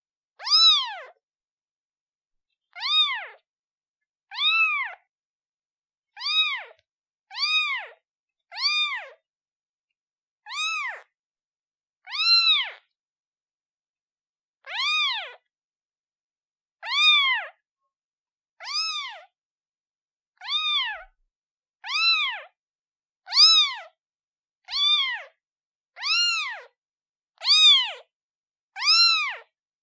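Newborn kitten meowing for its mother: about eighteen short, high-pitched meows, each rising then falling in pitch, repeated every one to two seconds.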